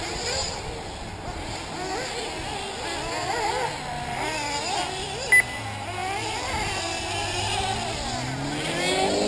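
Several 1/8-scale nitro RC buggy engines whining and revving around the track, their pitch constantly rising and falling, with one climbing sharply near the end. A short electronic beep sounds about five seconds in.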